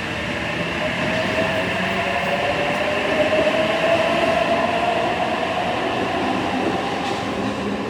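Electric passenger train pulling away, its motors giving a whine that rises slowly in pitch over rolling rumble as it picks up speed.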